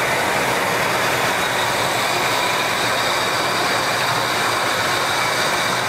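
1977 Lincoln Continental's V8 engine idling steadily with the hood open.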